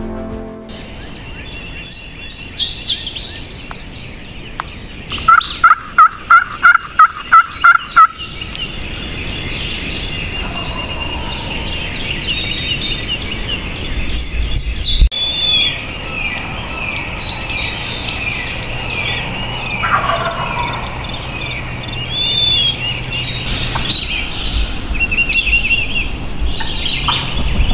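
Wild turkeys calling among a chorus of songbirds chirping and whistling. About five seconds in comes a run of about eight loud, evenly spaced turkey notes, with more calls scattered through the rest.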